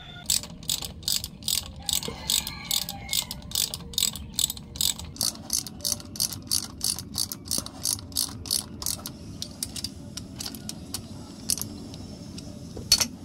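Hand ratchet wrench clicking as it is swung back and forth, about three to four clicks a second for the first nine seconds or so. After that the clicks come slower and more scattered, with one louder click near the end.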